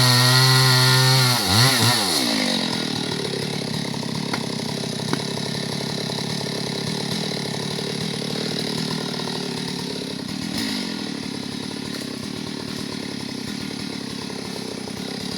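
Chainsaw running at full throttle, its revs dipping and rising once before it drops back about two seconds in. It then runs on steadily and more quietly, with two sharp clicks a few seconds later.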